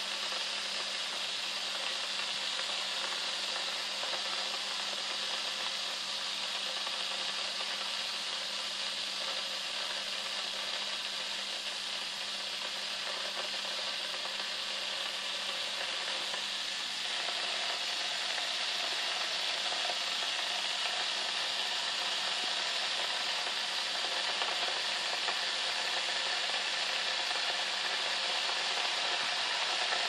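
Silvercrest glass electric kettle heating water: a steady hiss of water coming up toward the boil, growing slowly louder, with a further note joining in about halfway through.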